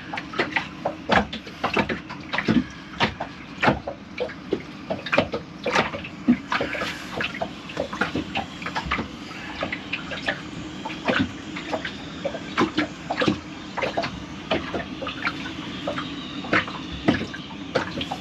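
Water sloshing and dripping in irregular small splashes and clicks, over a steady low hum.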